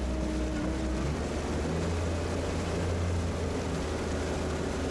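Water rushing and splashing around a person being towed on his belly across a lake, over a steady low engine drone from the towing vehicle. The engine's tone shifts about a second in, as the tow takes up.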